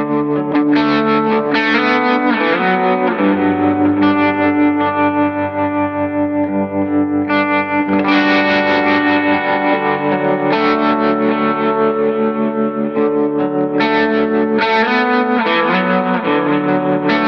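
Electric guitar played through the JET Revelation Reverb pedal's Room algorithm: strummed chords and single notes ringing out, with a short room reverb behind them.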